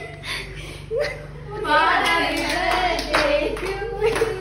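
Hands clapping, with voices over the clapping.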